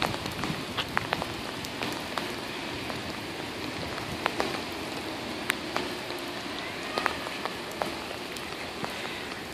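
Heavy rain coming down as a steady hiss, with scattered sharp ticks of drops striking close to the microphone.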